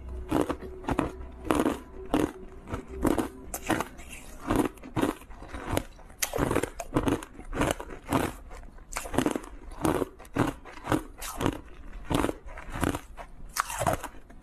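Chunks of ice coated in matcha green tea powder being bitten and chewed: a steady run of sharp, crisp crunches, about two a second.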